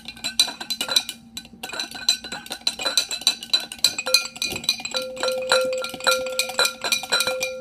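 Spoon stirring borax and water in a glass mason jar, clinking rapidly against the glass, several strikes a second, with a short pause a little after one second in. The jar rings after the strikes as the borax is mixed in to dissolve.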